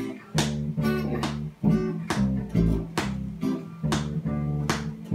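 Acoustic guitar strumming chords in a steady rhythm, about two strums a second, with an electric bass guitar playing low notes underneath.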